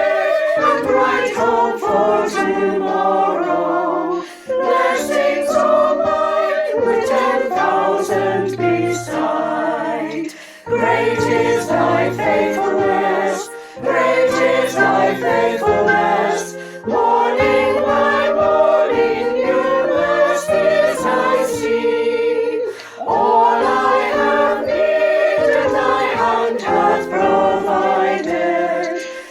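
Choir singing a hymn in harmony, in long sustained phrases broken by brief pauses for breath.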